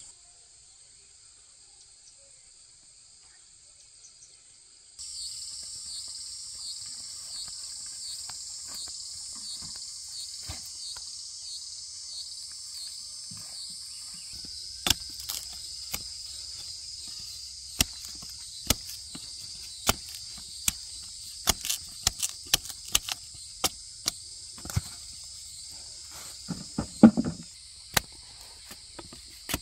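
Steady high-pitched insect chorus that pulses about twice a second after it jumps in level about five seconds in. From about halfway on, a scatter of sharp clicks and knocks joins it, with one louder thud near the end.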